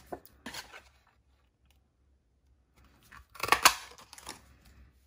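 Handheld Stampin' Up! Apple Builder Punch pressed down through cardstock, cutting out a shape with a quick crunchy cluster of clicks about three and a half seconds in. There is light paper handling before it.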